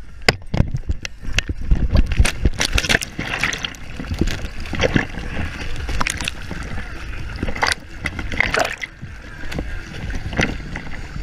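Seawater splashing and sloshing close to the microphone as a dog runs into the water and swims, with irregular splashes over a low rumble.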